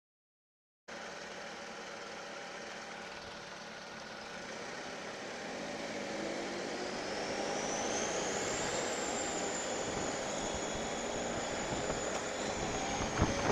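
A motorcycle, filmed from the rider's position, idling in traffic, then pulling away, its engine and road noise growing louder. As it gets moving, a high whine climbs and then holds steady. The sound cuts out completely for about the first second.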